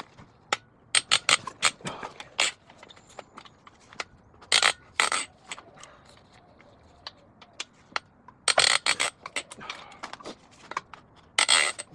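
Metal parts and hand tools clinking and scraping as a Ford 4.6 three-valve engine is taken apart: four short clusters of sharp clicks and knocks with quiet between.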